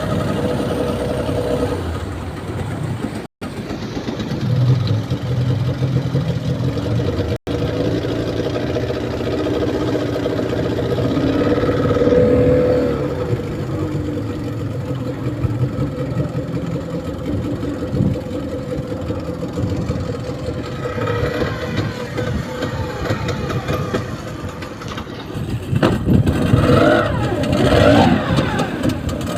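Small boat's engine running under way, its pitch shifting as the throttle changes. The sound drops out briefly twice, a few seconds in.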